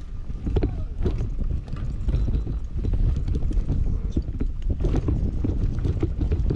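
Commencal Meta Power SX electric mountain bike riding a bumpy dirt trail: a steady low rolling rumble with many irregular rattles and knocks from the bike over the bumps, getting louder about two seconds in.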